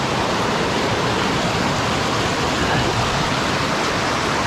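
Steady rush of fast-flowing river water tumbling over rocks near a waterfall.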